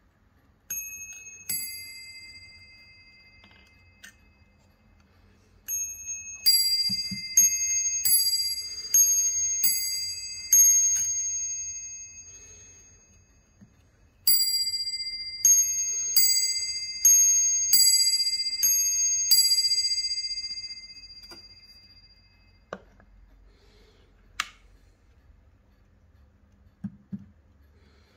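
Warmink mantel clock's double bell strike: hammers strike two bells of different pitch, in a ding-dong pattern. There are two strokes near the start, then two longer runs of strokes, and each stroke rings on and fades slowly. A few sharp mechanical clicks follow near the end.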